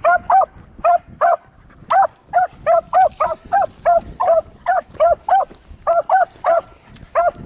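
Beagles barking on a rabbit's trail: a steady run of short, clipped barks, about three a second, with brief pauses about five and a half and seven seconds in.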